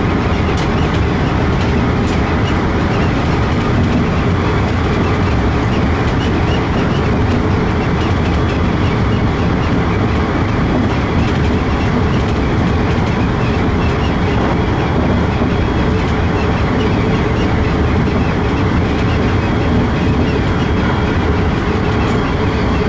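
Keikyu New 1000 series electric train running along the line, heard from inside the driver's cab: a steady rumble of wheels on the track with no breaks or sudden events.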